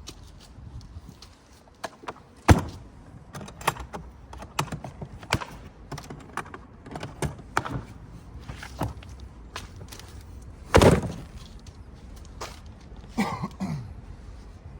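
Irregular knocks and clacks of bricks and hand tools as a damaged brick wall is taken down by hand. The two loudest impacts come about two and a half seconds in and near eleven seconds.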